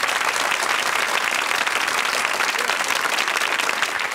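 Studio audience applauding, dense steady clapping.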